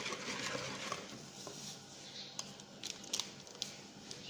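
Wire whisk beating a runny egg batter in a bamboo bowl, a soft rapid swishing that stops about a second in. A few light clicks follow.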